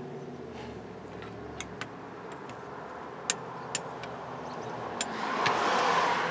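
A few light metallic clicks as steel sockets are handled and set over a distributor shaft, over a steady low hum. A broad rushing noise swells up near the end and is the loudest sound.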